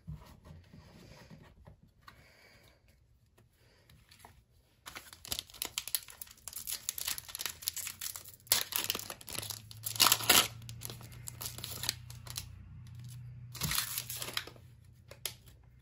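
Foil trading-card pack being torn open and crinkled by hand: faint handling at first, then crackling and tearing in uneven bursts from about five seconds in, with the loudest tears a little past the middle.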